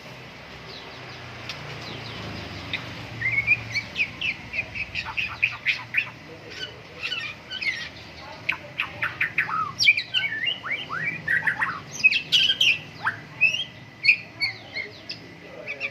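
White-rumped shama (murai batu) singing a rapid, varied song of whistles, chirps and sweeping notes. The song starts about three seconds in, after a faint hiss.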